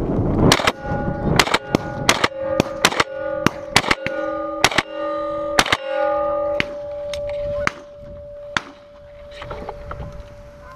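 A ragged volley of shotgun shots from several guns firing at geese, more than a dozen in quick succession and thinning out after about six seconds. A steady ringing tone sounds between the shots.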